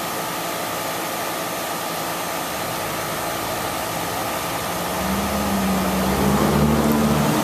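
Rheem 3 1/2 ton R-410A condenser running steadily with the even rush of its fan. From about five seconds in, a louder low engine-like hum rises slightly in pitch over it and cuts off near the end.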